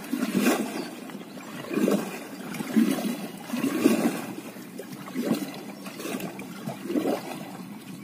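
Kayak paddle strokes in fast-flowing river water, a splashing swish with each stroke about once a second, heard from inside the kayak's cockpit.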